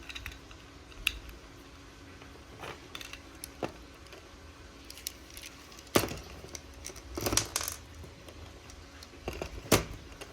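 Light clicks, taps and rattles of small toy-train parts being handled and set down, with sharper knocks about six seconds in and near the end.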